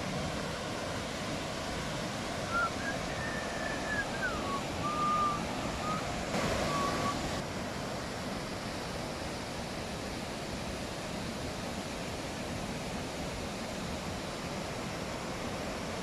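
Langfoss waterfall's lower cascade rushing steadily over the rocks. A few brief thin whistle-like notes rise and fall faintly over it between about two and a half and seven seconds in.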